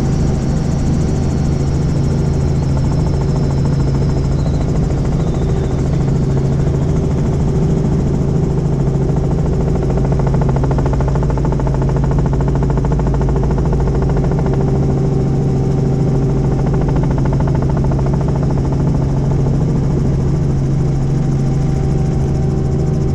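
Helicopter in flight: a loud, steady drone of its engine and rotors with a strong low hum that does not change.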